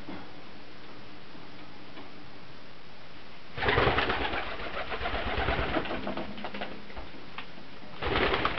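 A pigeon flapping its wings: a burst of rapid wingbeats about three and a half seconds in that trails off over a few seconds, then another burst near the end.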